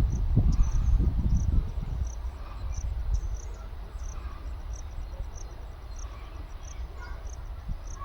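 An insect, likely a cricket, chirping in short, high, regular chirps about twice a second, over a low rumble that fades away during the first two seconds.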